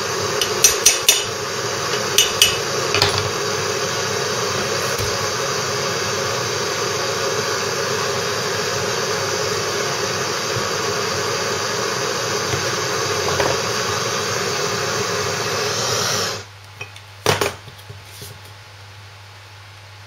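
A hammer tapping a drift around the outer race of a ball bearing, driving it into the Lister D's heated crankshaft housing because heat alone was not enough to seat it. A few sharp metallic taps fall in the first three seconds, over a steady loud hiss that cuts off abruptly about sixteen seconds in. A single knock and a couple of lighter clicks come near the end.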